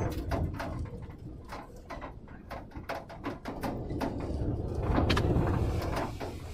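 Storm wind rumbling on the microphone, with many irregular sharp taps and clicks over it; the rumble grows louder about five seconds in.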